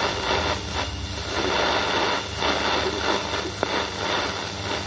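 Shortwave radio receiver tuned to a weak 4750 kHz broadcast, giving steady hiss and static over a low hum, with the station's voice faded down into the noise. This is the sign of poor propagation.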